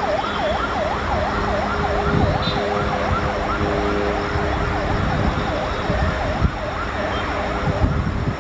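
A siren wailing rapidly up and down, about two cycles a second, fading out near the end, over a low rumble and steady humming tones.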